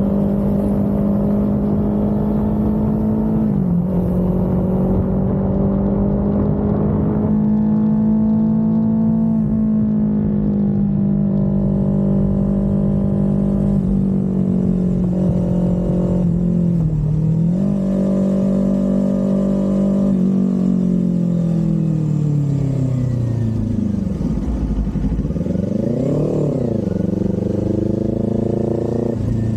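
Kawasaki Z400's 399 cc parallel-twin engine and exhaust under way on a ride, the engine note mostly steady with a few brief dips. The pitch falls steadily as the bike slows past the two-thirds mark, then a short rev rises and falls near the end.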